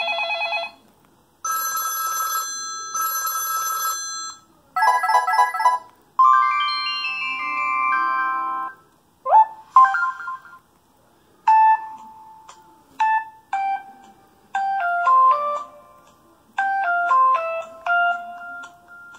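Preloaded ringtones of a Samsung Freeform cell phone playing through its small speaker, in short separate pieces: first a buzzy pulsing tone, then two bursts of a trilling ring, then electronic melodies of chime-like notes.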